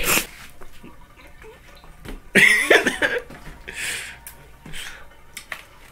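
A person coughing once, about two and a half seconds in, followed by two softer breathy sounds.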